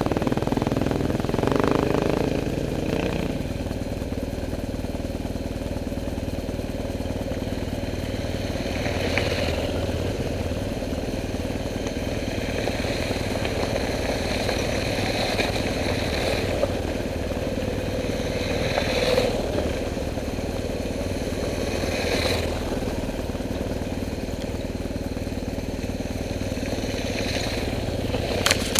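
Motorcycle engine running steadily, a little louder for the first few seconds.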